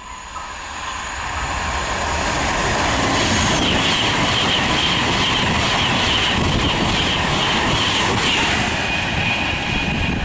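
Class 390 Pendolino electric train passing through a station at speed: a loud rush of air and wheel-on-rail noise that builds over the first few seconds and then holds steady, with a high hiss through the middle.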